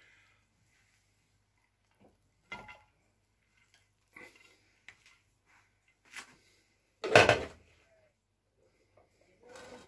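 Scattered knocks and scrapes of a small plate scooping cooked rice out of a metal pot and tipping it onto a metal serving platter, five or so in all, the loudest about seven seconds in.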